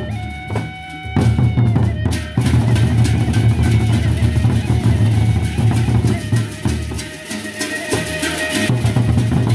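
Gendang beleq ensemble: large Sasak barrel drums beaten with sticks in a fast, dense rhythm, with a sustained flute (seruling) melody over it. The drumming thins briefly about a second in, then comes back in full.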